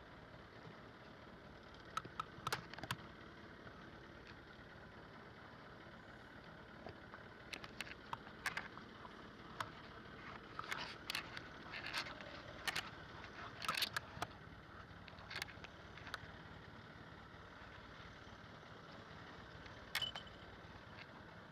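Steady low background noise with scattered sharp clicks and knocks of handled gear: a few about two seconds in, a busier run through the middle, and one more near the end.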